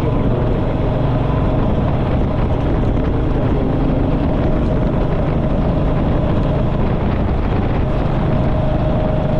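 Motorcycle running steadily while riding on the road, with engine and road noise that holds even throughout and a steady whine in it.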